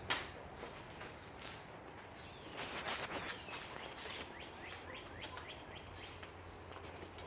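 A bird chirping, a quick run of short falling chirps a few seconds in, over scattered light clicks and knocks.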